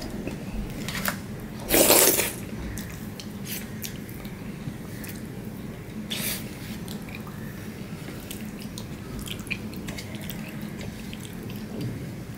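Fingers scraping and squishing wet mashed taro-leaf greens and rice around a steel plate, with scattered small wet clicks. There is one much louder burst about two seconds in, a smaller one around six seconds, and a steady low hum underneath.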